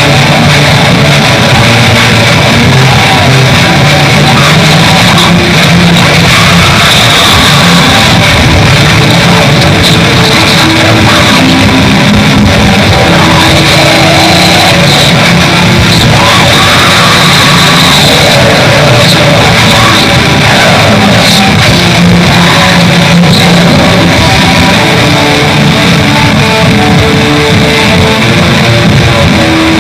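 Raw black metal song: heavily distorted electric guitars over fast, dense drumming, loud and unbroken.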